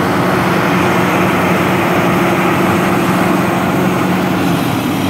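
Vermeer TG400 tub grinder's diesel engine running loudly and steadily, a deep hum with a rushing mechanical noise over it. About four and a half seconds in, the sound eases slightly.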